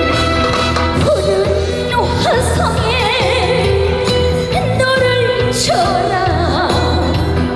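A female trot singer singing with wide vibrato over a live band, with a steady bass beat underneath.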